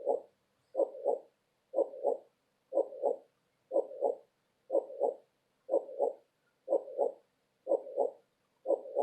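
Heartbeat: steady paired lub-dub thumps, about one beat a second.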